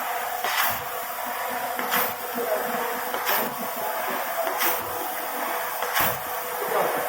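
Rotary screw air compressor installation running: a steady hiss of moving air with a faint steady hum, broken by a brief, louder rush of air that repeats evenly about every 1.3 seconds.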